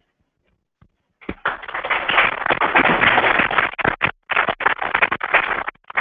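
Audience applauding, starting about a second in and stopping shortly before the end.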